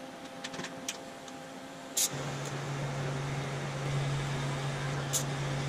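Electric welder striking an arc about two seconds in with a sharp click, then a steady welding hiss with a low hum as a bead is run on a steel suspension mount.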